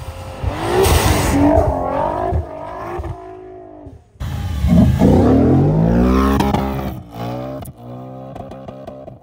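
Nissan R35 GT-R's twin-turbo V6 revving hard as the car drifts through deep snow. After a sudden cut about four seconds in, the engine revs climb steeply again, then rise and fall with short breaks near the end.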